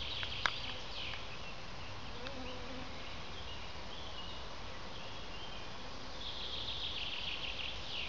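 Flies and other insects buzzing in a summer forest, one passing close with a brief wavering hum. A sharp click comes about half a second in, and a burst of high chirping comes near the end.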